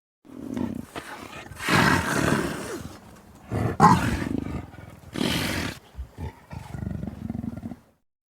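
Smilodon (sabre-toothed cat) sound effect built from big-cat vocalisations: several calls one after another over about seven seconds. The loudest comes about two seconds in, and there is a short, higher cry near the four-second mark.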